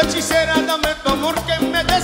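Live cumbia band playing: horns, electric bass and percussion over a steady dance beat.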